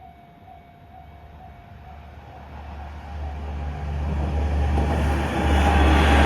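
A diesel railcar approaching a level crossing, its engine rumble and wheel noise growing steadily louder from about two seconds in. At the start the crossing's electronic warning bell is ringing in a quick repeating pulse, soon drowned out by the train.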